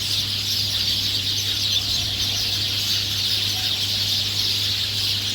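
A large flock of migratory birds calling all at once: a dense, continuous chatter with no break, under a steady low hum.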